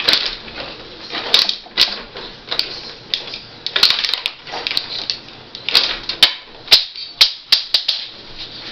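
Rod hockey table in play: an irregular run of sharp clicks and clacks as the puck is struck by the metal player figures and knocks against the boards and rods. The hardest strikes come about two-thirds of the way through.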